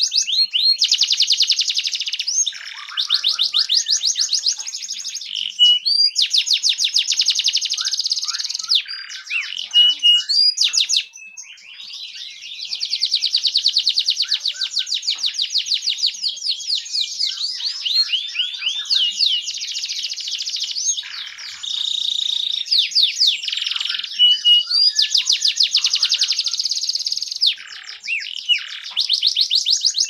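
Domestic canary singing a long, loud song of very rapid trills and rolls, switching to a new run of repeated notes every second or two, with sweeping whistled notes between runs. Brief breaks come about a third of the way in and again near the end.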